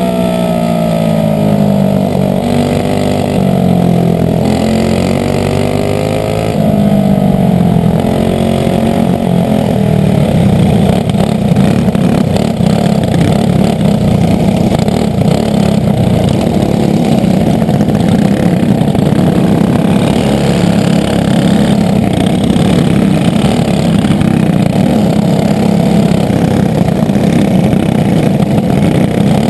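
Briggs & Stratton Animal single-cylinder four-stroke kart engine running on methanol, heard from the kart itself: for the first several seconds its pitch swings up and down as the throttle comes on and off, then about seven seconds in it gets louder and settles into a steady, dense high-revving drone.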